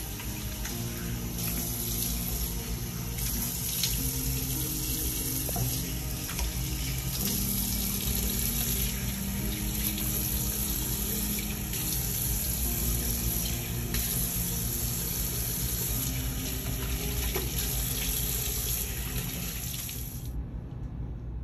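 Bathroom sink tap running steadily into the basin while hands wash under the stream; the running water cuts off suddenly near the end.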